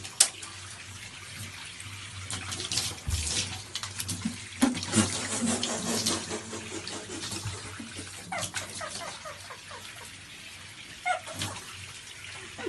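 Water running and splashing, with irregular clatters and splashes throughout and a few brief high squeaks near the end.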